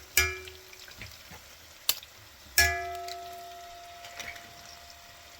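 A metal utensil striking a metal cooking vessel twice, about two and a half seconds apart, each knock leaving a bell-like ring that fades slowly, with a lighter click in between. A faint steady hiss sits underneath.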